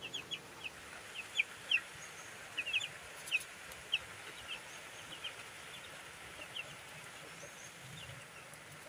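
Six-day-old broiler chicks peeping: scattered short, high cheeps, several a second, some overlapping.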